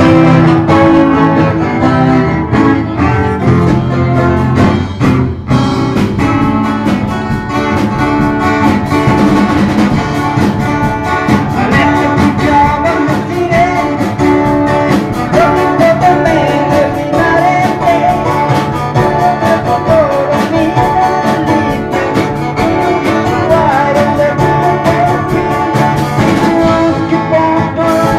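Music from a small band: guitars over a steady beat, with singing.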